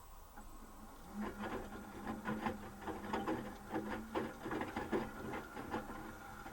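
Asko W6098X washing machine in its final spin phase: the drum motor starts a steady low hum about a second in, with irregular knocks and clicks from the turning drum for about five seconds, then the hum runs on steadily.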